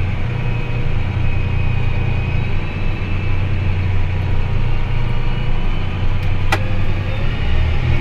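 Tractor engine running steadily as it drives along a gravel road: a low drone with a faint steady whine above it. A single sharp click comes about six and a half seconds in.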